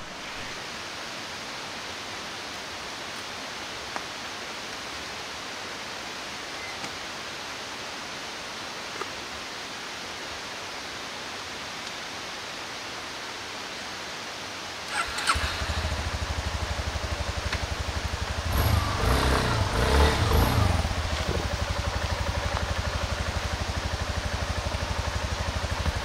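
A steady rushing hiss, then about fifteen seconds in a motorcycle engine starts and settles into an even idle, revving up briefly a few seconds later.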